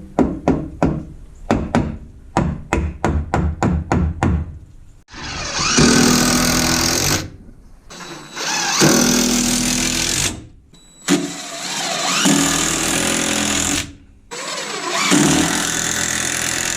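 Sharp knocks, about three a second, for the first few seconds. Then a power drill runs in four bursts of two to three seconds each, its pitch rising and falling as it drives fasteners to fix a vertical piece around the water heater.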